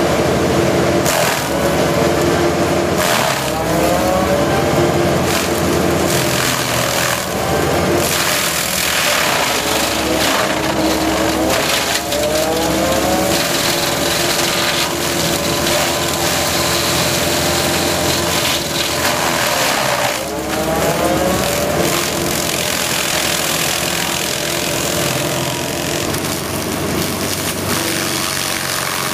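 Excavator-mounted FAE SCM stump cutter grinding into a stump: a steady, loud machine noise of the spinning cutter head and the excavator's engine, mixed with the crunch of wood and soil being chewed up. The pitch dips and climbs back several times as the cutter bites in and recovers.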